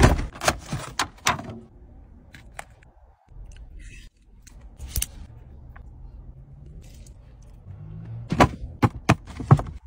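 Scattered sharp clicks and taps, with a quick cluster of them near the end.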